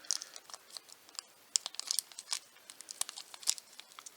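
Plastic packaging crinkling in quick, irregular crackles as small toy pieces are pulled out of it.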